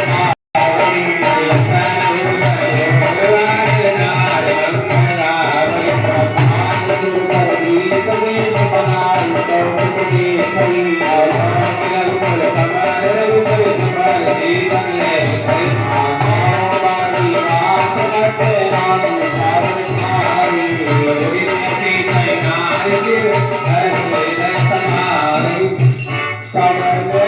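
Instrumental music: a wavering melody over a steady, fast rattling percussion beat, with a brief dropout about half a second in.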